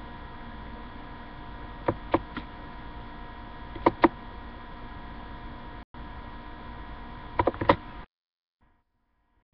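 Steady electrical hum and hiss with a thin multi-tone whine, picked up by a computer webcam's microphone, broken by three pairs of sharp clicks. The sound cuts out abruptly near the end.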